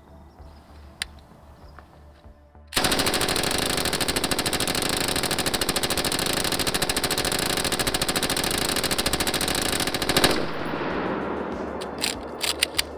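Belt-fed 5.56 SAW light machine gun firing one long automatic burst of about a hundred rounds, at about 800 rounds a minute, starting a few seconds in and lasting about seven and a half seconds. The burst cuts off and its echo dies away, followed by a few sharp clinks near the end.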